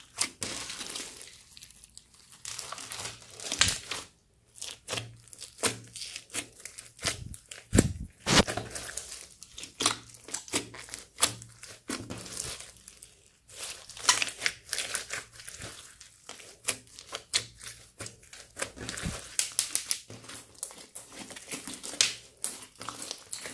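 Clear store-bought slime packed with foam beads and glitter being squeezed, poked and stretched by hand, giving an irregular string of wet crackles, clicks and pops.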